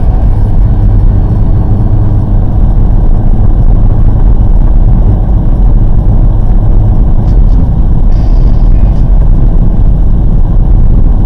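Steady low rumble of road, tyre and engine noise inside a Volkswagen Golf R's cabin as it drives on snowy roads.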